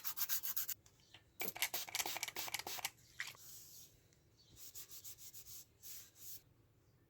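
Sandpaper rubbing on a plastic keycap in quick back-and-forth strokes, about eight a second at first, then in short spells with pauses between them.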